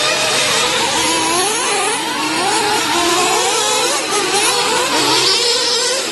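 Several small nitro engines of 1/8-scale RC truggies revving at once, their pitches rising and falling as the trucks accelerate and slow around the track.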